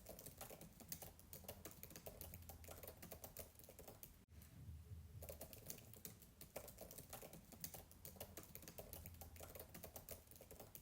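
Fast typing on a MacBook keyboard, heard faint and distant: a rapid, continuous patter of soft key clicks, broken by a momentary gap about four seconds in.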